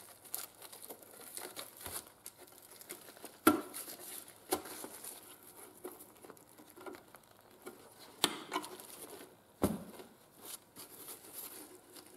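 Decayed original vinyl seat cover of a Yamaha YL1 being peeled by hand off its rusty steel seat pan: irregular crackling and tearing, with four sharper clicks spread through, the loudest about three and a half seconds in.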